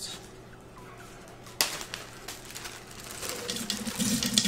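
A single sharp click about a second and a half in. Near the end, pumpkin seeds are poured from a plastic bag into a plastic blender jar: a dense rattle of small hard pieces, with the bag crinkling.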